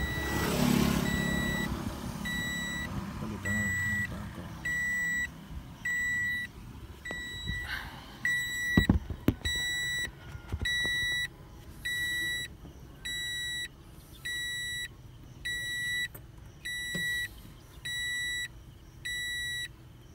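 Toyota Vios cabin warning chime beeping steadily, a short high beep about every three-quarters of a second. A few sharp clicks and knocks of handling come about halfway through.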